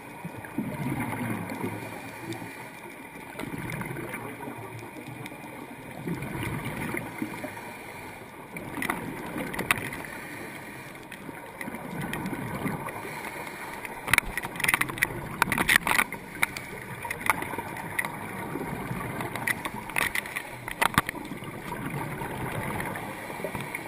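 Scuba regulator exhaust bubbles heard underwater: low gurgling swells of exhaled air every few seconds. Clusters of sharp clicks come about two-thirds of the way through and again near the end.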